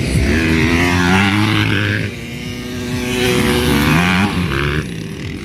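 Motocross dirt bike engines revving hard, climbing in pitch through the gears. The engine note drops briefly about two seconds in, then pulls up again.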